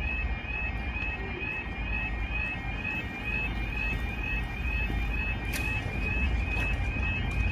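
Level crossing audible warning alarm, the two-tone 'yodel' of a UK automatic half-barrier crossing, sounding a rapidly repeating warble as the amber road light changes to flashing red. It warns that a train is approaching and the barriers are about to lower.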